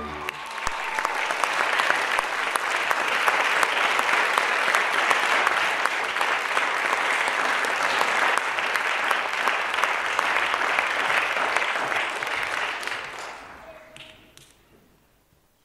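Theatre audience applauding after a ballet solo, a dense patter of clapping that fades away over the last few seconds.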